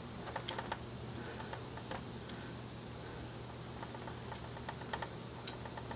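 Metal tongs making a few light clicks and taps against a small wire grill rack as beef steaks are laid on it, over a steady high-pitched drone in the background.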